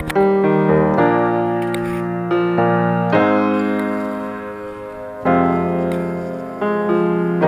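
Piano music: slow chords struck every second or two, each left to ring and fade before the next.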